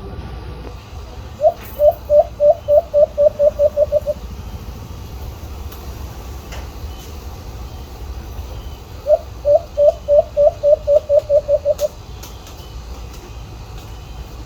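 White-eared brown dove calling: two runs of about a dozen short cooing notes, each run speeding up and dropping slightly in pitch, the second starting some five seconds after the first ends. A steady low rumble runs underneath.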